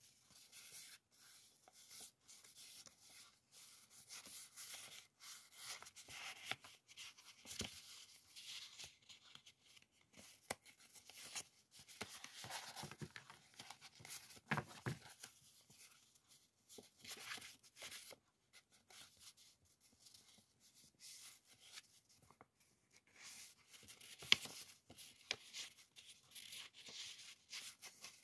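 Thin sheets of decorative background paper rustling and sliding against one another as they are shuffled and flipped through by hand: faint, irregular scrapes and flicks.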